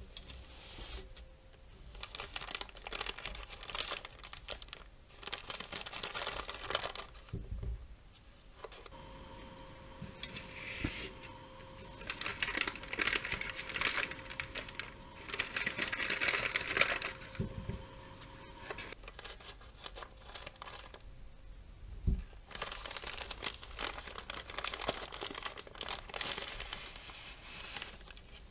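Paper utensil wrapper being handled and crinkled, in three long spells of rustling with short pauses between them and a few soft thumps against the table.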